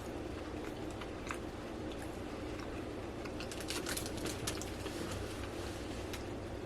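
A person chewing a mouthful of soft cupcake with marshmallow filling and icing, making small wet mouth clicks. The clicks bunch together about four seconds in, over a steady low hum.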